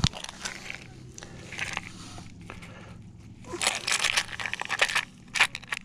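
Hands rigging fishing tackle close to the microphone: irregular crinkly rustling and small clicks, with a knock at the start and the busiest handling noise in the second half.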